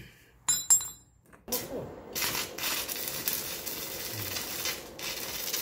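Metal parts of a motorcycle's rear hub and sprocket carrier clink a few times as they are handled, then a steady hiss starts about a second and a half in.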